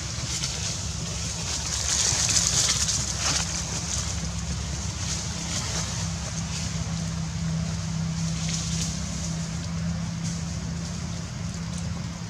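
Steady outdoor background noise: a low rumble with a faint hum, under an even high hiss, with a few faint clicks or rustles.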